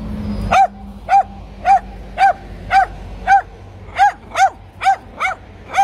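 Dog barking over and over in short, evenly paced barks, about two a second, around eleven in all.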